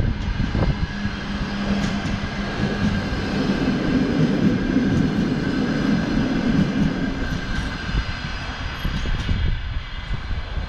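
Passenger coaches of a Russian Railways train rolling past on the rails, a steady rumble of wheels on track that fades near the end as the tail of the train moves away.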